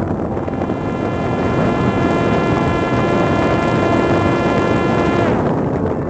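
Parrot Disco drone's electric pusher-propeller motor whining at a steady high pitch under heavy wind rush, heard from a camera on the airframe. About five seconds in the whine glides down as the throttle is eased back.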